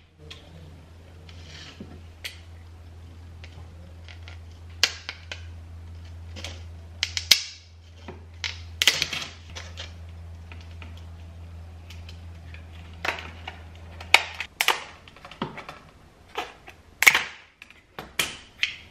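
Irregular sharp plastic clicks and snaps as a white plastic cord-cover channel is handled and flexed on a countertop, then kitchen scissors snip through it near the end. A low steady hum underneath stops about three quarters of the way through.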